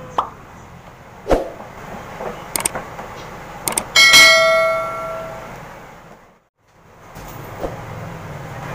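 Subscribe-button animation sound effects: a couple of quick mouse clicks, then a bright notification-bell ding about four seconds in that rings out and fades over about a second and a half. Faint steady background noise lies underneath, and the sound drops out briefly near the end before the background noise returns.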